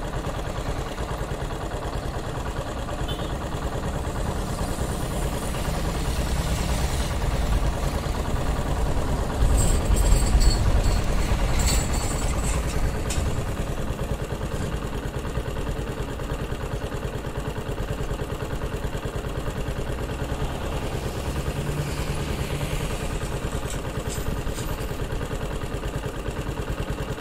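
TVS XL100 moped's small single-cylinder engine idling steadily. It gets louder for a few seconds about ten seconds in, with some clatter, then settles back. The engine has a misfire ('missing') problem and does not pick up.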